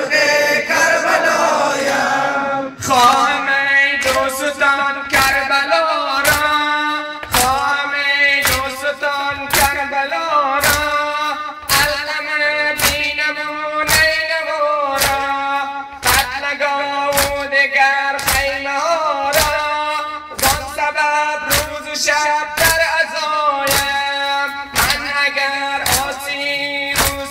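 A male reciter sings a Persian noha (Muharram lament) into a microphone. The mourners beat their chests in unison (sineh-zani) with sharp slaps about every 0.7 s, starting about three seconds in.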